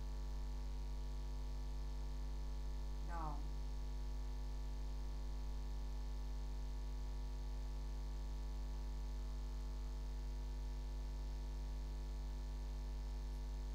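Steady electrical mains hum made of many constant tones with a strong low drone. A brief, faint wavering pitched sound comes through about three seconds in.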